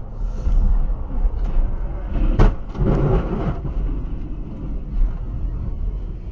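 Steady road and wind rumble from a camera on a towed boat trailer at highway speed, then a sharp crack and a short, loud crash a couple of seconds in as the trailer and the small boat on it overturn onto the road.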